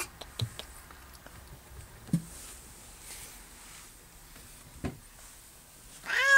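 A ginger tabby barn cat meows once near the end. Before that there are only a few faint, brief knocks.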